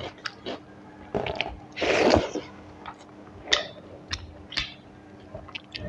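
Close-miked eating: a person chewing a mouthful of rice and curry with wet mouth sounds and sharp lip smacks and clicks. The loudest sound is a crunching or slurping bite about two seconds in.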